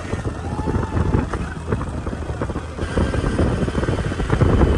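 Wind rumbling and buffeting over the microphone of a moving motor scooter, with the scooter's engine running underneath.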